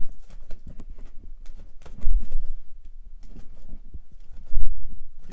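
Vinyl LP records being flipped through by hand in a box: a run of light clicks and taps as the cardboard sleeves knock against one another, with two dull thumps, about two seconds in and near the end.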